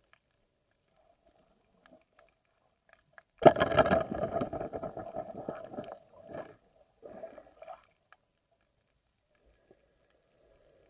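Underwater, a rubber-powered spear (pana) is shot at the rocky bottom: a sudden loud strike about three and a half seconds in, fading over about two seconds, then two shorter noisy bursts.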